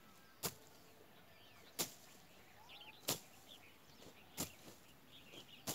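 Long-handled machete slashing through grass and brush in steady swings, five sharp cuts about a second and a quarter apart. Birds chirp faintly in the background.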